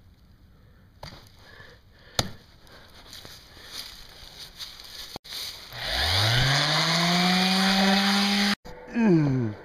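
DeWalt random orbital sander spinning up with a rising whine about six seconds in, then running steadily at full speed before it is switched off and winds down near the end. A sharp click comes about two seconds in.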